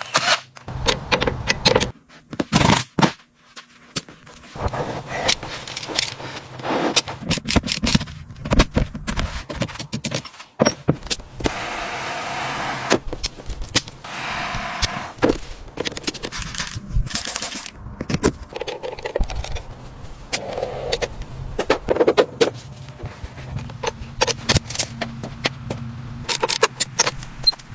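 Car-restoration workshop sounds: rapid clicks and knocks of metal and tools, scraping, and a few seconds of steady hiss near the middle.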